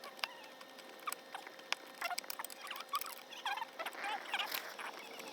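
Faint scattered clicks and short squeaks of an Allen wrench and 8mm wrench tightening the lock nuts and bolts of a metal door handle.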